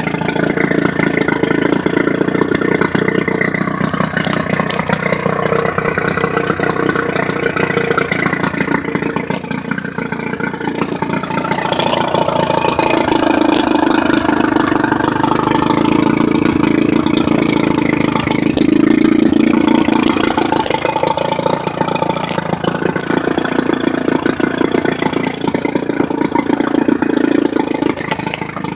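15 hp Johnson J15RCSD two-stroke twin outboard motor running steadily, its engine note shifting several times, notably about twelve seconds in.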